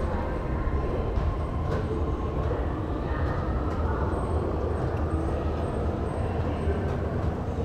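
Steady low rumble and hiss of a metro station, the kind of running noise made by trains or station machinery such as escalators.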